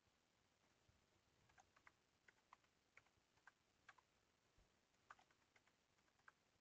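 Faint computer keyboard typing: irregular key clicks, with a short pause about two-thirds of the way through.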